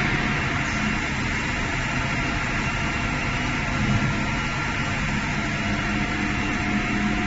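Steady running noise of a high-speed PE pipe extrusion line: an even mechanical hum and hiss with several steady tones running through it.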